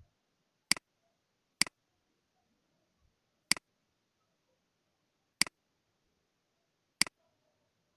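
Five computer mouse clicks, each a sharp press followed at once by a softer release, spaced a second or two apart with quiet room tone between them.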